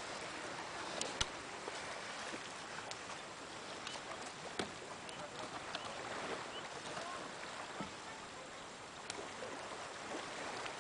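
Steady open-air hiss with a few sharp knocks of driftwood logs being stacked onto a bonfire pile, the loudest about a second in.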